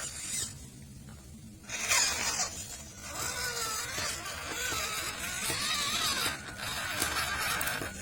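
Small electric motor and gearbox of an MN99 D90 RC off-road car whining. It comes in two short bursts, then a longer run from about three seconds in, its pitch wavering up and down as the throttle changes, over a gritty hiss.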